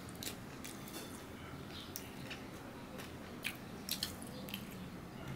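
Eating sounds: a mouth chewing rice and fingers mixing rice with curry on a steel plate, giving soft scattered clicks and squishes over a steady low background hum.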